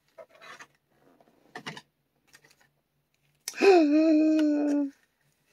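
Faint rustling and small clicks of a blister-wrapped HeroClix booster pack being torn open and handled, then a man's single drawn-out wordless vocal exclamation, lasting about a second and a half and starting about three and a half seconds in.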